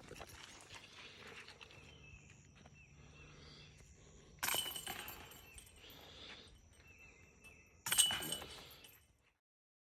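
Two disc golf putts hitting the hanging chains of a metal basket, each a sudden bright chain rattle that dies away over about a second, the first about halfway through and the second near the end. Faint outdoor background between them, and the sound cuts to silence just before the end.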